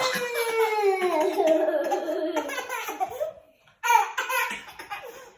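A young child's high voice: one long drawn-out sound that slides slowly down in pitch for about three seconds. After a short pause come shorter, broken high vocal sounds in the manner of laughter.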